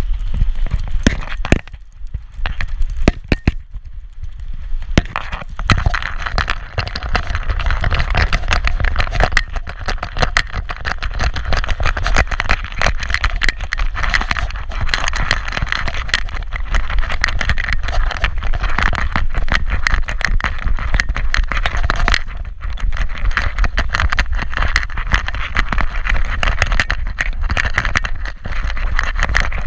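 Metal dog tags and a leash clip jingling and clicking rapidly on the collar of a trotting small dog, with rattling from a camera harness on its back. Steady road traffic noise runs underneath.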